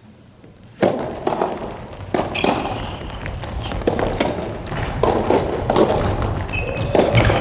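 Soft tennis rally in an indoor hall: a quick, irregular run of sharp knocks and thuds from the rubber ball being struck by rackets and bouncing on the court, with a few short high squeaks, starting about a second in.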